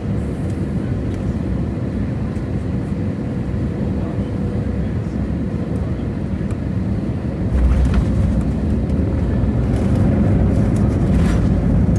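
Airbus A320 cabin noise: a steady low rumble of engines and airflow. About seven and a half seconds in it steps up to a louder, deeper rumble, with a few brief rattles.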